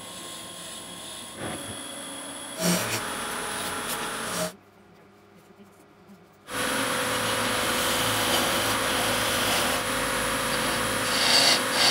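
Wood lathe running while a hand turning tool cuts a spinning wooden handle blank, a steady shaving and scraping noise. It drops to near silence for about two seconds starting some four and a half seconds in, then comes back louder.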